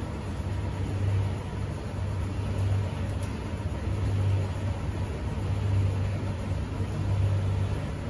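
Commercial front-loading washing machine on its final spin: a steady low hum and rumble that swells and fades about every second and a half.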